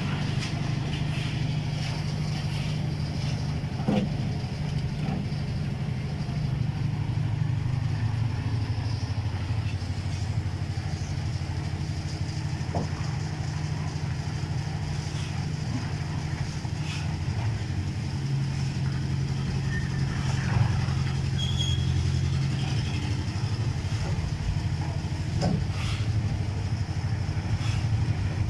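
A motor engine running steadily, its pitch shifting slightly a few times, with a few faint knocks.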